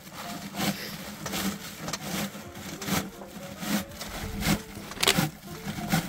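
Regular sharp strokes, about one every three-quarters of a second: earth being worked with hand tools while filling superadobe sacks.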